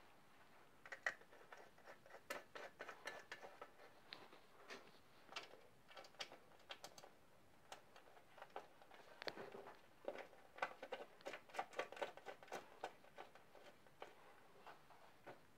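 Faint, irregular clicks and taps of a hand tool and small screws as the small leg-shield cover of a Monark Monarscoot moped is screwed on. The taps come in two busier stretches, about a second in and again from about ten to thirteen seconds in.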